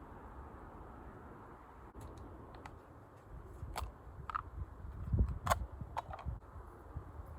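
A handful of sharp clicks and light knocks, irregularly spaced, with low thuds about two thirds of the way through, over a steady faint rushing in the background.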